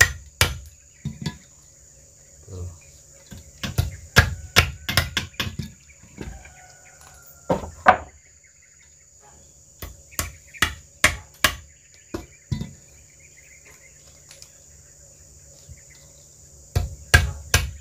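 Hammer driving nails into wood, in irregular runs of sharp strikes with pauses between. A steady high insect drone runs underneath.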